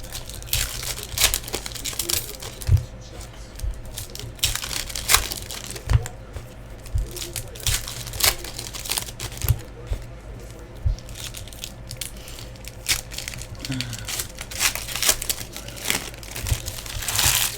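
Trading card pack wrappers crinkling and tearing as packs of Panini Contenders football cards are opened and handled. Irregular rustling bursts, with scattered low bumps.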